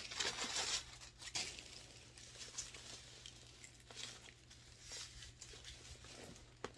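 Packaging rustling and crinkling as a handbag is unwrapped by hand. The noise is loudest in the first second or so, then thins to faint scattered rustles and small clicks.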